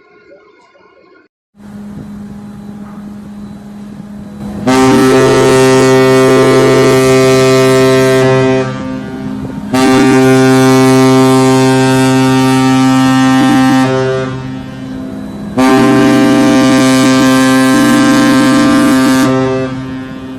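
Ship's horn sounding three long blasts of about four seconds each. A quieter steady horn tone starts about a second and a half in and holds underneath.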